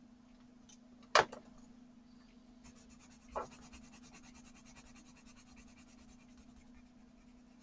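A sharp knock about a second in and a smaller one two seconds later. Then quick, even scribbling strokes of an art pencil on watercolour paper, laying down a colour swatch, which stop shortly before the end. A low steady hum runs underneath.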